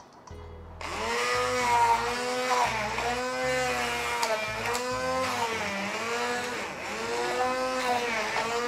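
Electric hand mixer switched on about a second in and running, its motor whine dipping and rising every second or so as it works through the liquid.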